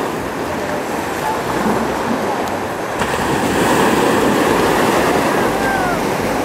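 Small waves breaking and washing up on a sandy beach, swelling louder about halfway through, with wind rumbling on the microphone.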